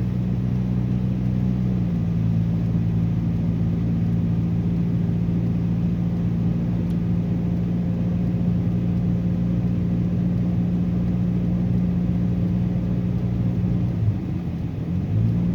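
Car engine and road noise heard from inside the cabin while driving slowly, a steady low drone. Its pitch drops slightly just under two seconds in, and it dips and climbs again near the end.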